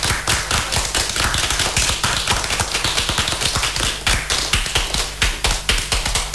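A group of men clapping their hands together, many claps overlapping in a dense, continuous run.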